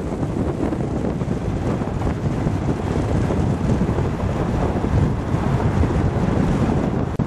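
Steady wind and road noise of a car moving at highway speed, heard from inside the cabin, with wind buffeting the microphone.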